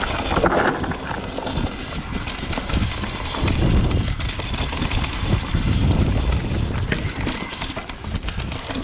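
Mountain bike descending a dirt singletrack: the tyres rumble over the trail while the bike knocks and rattles over roots and stones in a rapid, uneven run of clatters.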